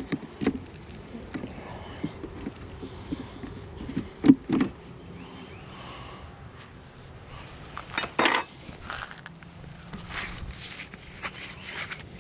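Scattered knocks and clinks of beehive equipment being handled during a hive inspection, loudest as a double knock about four seconds in and a clatter about eight seconds in, with honey bees buzzing in the background.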